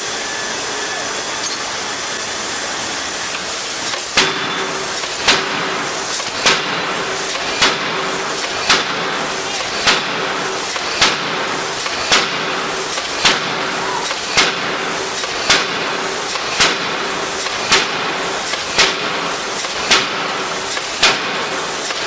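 Heavy forging hammer striking steel at an even pace, about once a second, over a continuous loud noise of machinery; the strikes begin about four seconds in.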